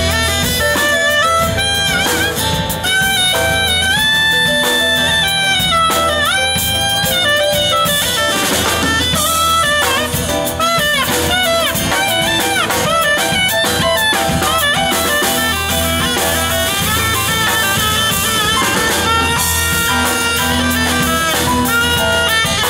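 Live band playing an instrumental break: a saxophone plays the lead melody, with held notes and bends, over electric guitar, drum kit and piano.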